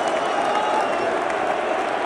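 A large stadium crowd applauding and cheering, a steady dense roar, with a thin high whistle through the first second.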